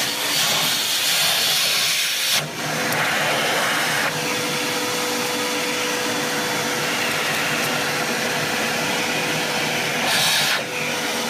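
Vacuum cleaner running, its hose nozzle sucking coffee grounds out of an espresso machine's grinder burr chamber: a steady motor whine under a rush of air that is louder for the first couple of seconds and again briefly near the end as the nozzle moves.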